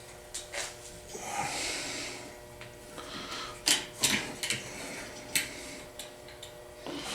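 Rusted steel locking pliers knocking and clicking against the jaws of a bench vise as they are shifted and clamped. There is a cluster of sharp clicks about four seconds in and one more a little later.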